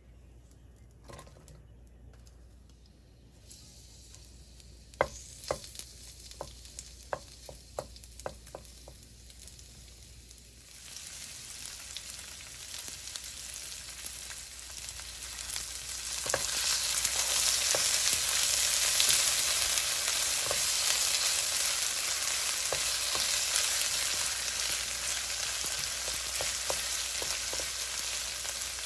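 Onions sizzling in hot oil in a frying pan. A run of sharp clicks comes about five to nine seconds in, then the sizzle starts about 11 seconds in and grows louder about 16 seconds in, with light taps of a wooden spatula stirring the onions.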